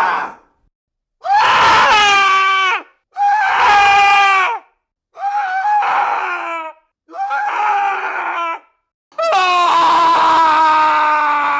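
A man screaming in desperation, again and again: about five long, loud screams separated by short silences, each dropping in pitch as it breaks off, the last one held longest.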